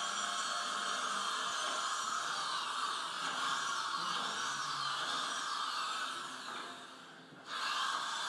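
Harsh, steady whirring electronic noise from a computer performance, played over loudspeakers, with wavering high whistling glides on top. It fades out briefly about seven seconds in, then cuts back in.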